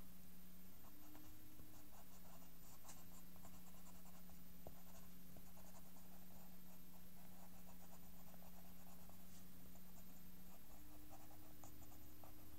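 A pen scratching on paper in many short, quick strokes, over a steady low hum that shifts in pitch near the end.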